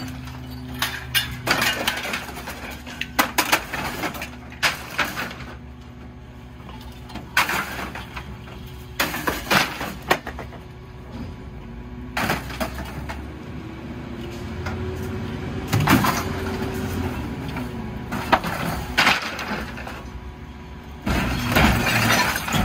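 McNeilus rear-loader garbage truck taking on a load of bulky junk: repeated clattering, cracking crashes as items are thrown into the hopper and break, over the engine's steady idle. About halfway through, the engine revs up and settles again as the packer blade cycles, and near the end a louder crunching starts as the load is compacted.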